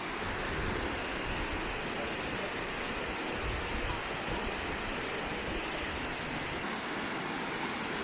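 Waterfall: a steady rush of water cascading over rock.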